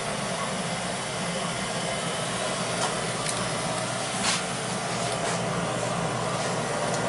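Beckett oil burner firing, running with a steady, even rushing noise and no vibration now that its stripped motor-to-pump coupling has been replaced. A few light clicks come about halfway through.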